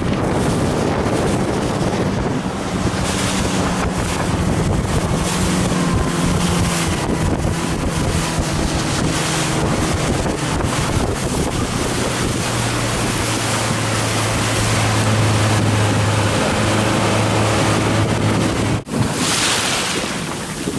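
An engine running steadily under heavy wind noise on the microphone. Its note drops lower about twelve seconds in, and the sound dips briefly near the end.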